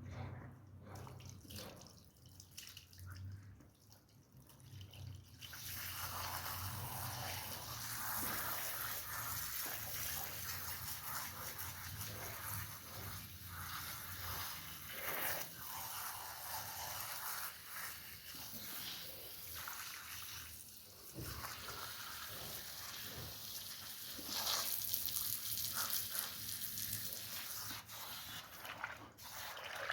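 Water running and splashing onto a wool rug as it is washed. It sets in about five and a half seconds in and then goes on steadily.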